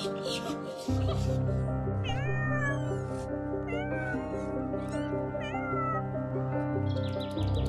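Domestic cat meowing several times in short calls, over background music with steady low notes.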